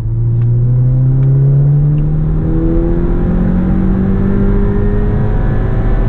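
Skoda Octavia RS's 2.0 TSI turbocharged four-cylinder under hard acceleration in one gear, heard from inside the cabin, its engine note rising steadily in pitch.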